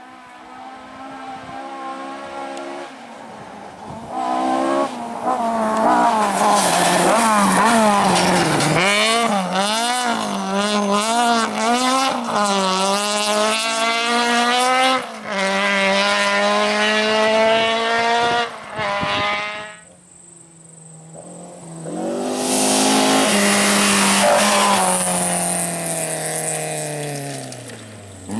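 Rally car engines at high revs on a gravel forest stage, the pitch swinging rapidly up and down through gear changes and throttle blips as a car passes. The sound drops off sharply about twenty seconds in. An engine then rises again and falls in pitch as another car goes by.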